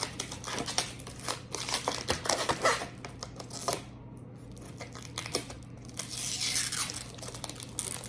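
Protective plastic film being peeled and crinkled off a hard-shell laptop case, with irregular small clicks and taps of hard plastic. A longer stretch of peeling and crinkling comes about six seconds in.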